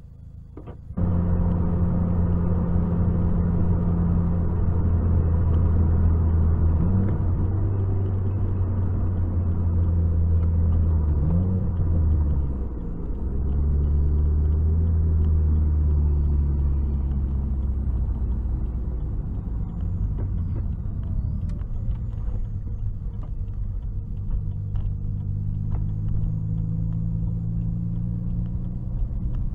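Car engine and road noise heard from inside the cabin while driving, a steady low drone that starts about a second in and shifts pitch a few times along the way.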